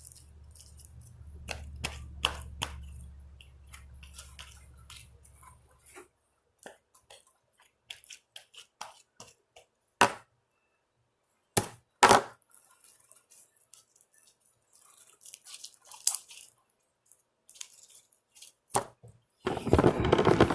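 Slime being squished and poked by hand, giving scattered sharp clicks, crackles and pops, with a steady low hum for the first six seconds and a louder burst of noise near the end.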